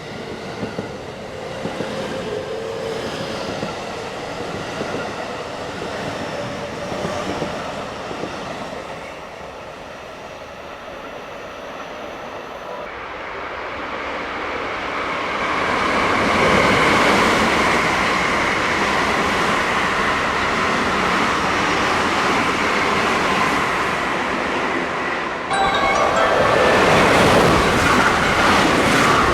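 JR West 223/225-series Special Rapid electric trains passing through the station at speed. A fainter train whine fades out in the first several seconds, then a train's rushing wheel-and-rail noise builds from about halfway and stays loud, and near the end a second passing train cuts in abruptly, louder still.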